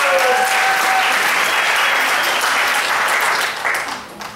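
Audience applauding and cheering as an act comes on stage, with a few held shouts or whistles over the clapping. It dies away near the end.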